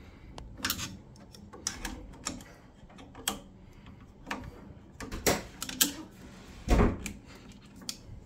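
Irregular clicks, knocks and scrapes of a screwdriver and metal parts as the head of a boiler's circulating pump is worked on, with one heavier thump about two-thirds of the way through.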